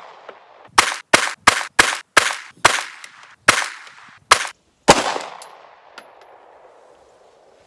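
A string of about ten 9mm Glock pistol shots, fired from a rest, with an aftermarket Alpha Wolf barrel. They come at an uneven pace over about four seconds, each report trailing off in a short ring, and stop about five seconds in.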